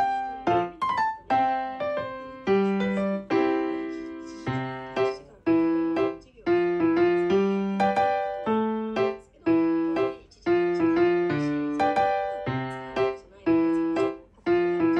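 Background piano music: a light melody of struck notes, about two a second, each fading out, over lower accompanying notes.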